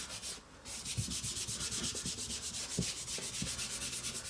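A paper pattern being rubbed down by hand onto glued hardboard: quick, even back-and-forth rubbing strokes that start just under a second in.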